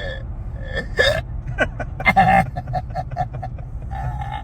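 A person's hiccups, deep and burp-like, several short gulps in a row, then a quick stuttering run of laughing sounds. A steady low truck-cabin rumble runs underneath.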